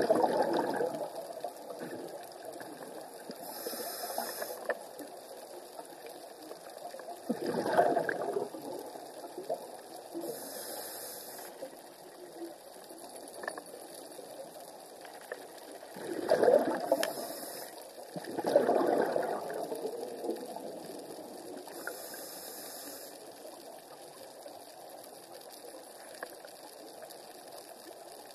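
Scuba diver breathing through a regulator underwater: four rumbling bursts of exhaled bubbles, with short high hisses of inhalation through the regulator in between.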